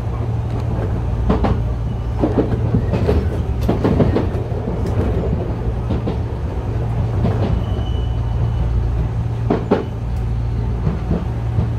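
Enshu Railway 2000 series electric train running, heard from the cab: a steady low hum with irregular clicks and knocks of the wheels over rail joints and points. A brief high squeal sounds about eight seconds in.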